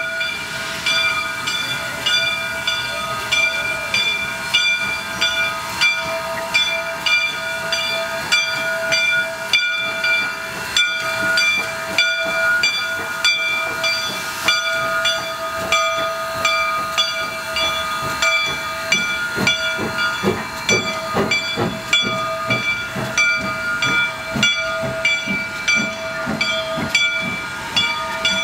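Soo Line 1003 steam locomotive, a 2-8-2 Mikado, hissing steam. Over the hiss run several steady tones, pulsing in a regular beat about once a second.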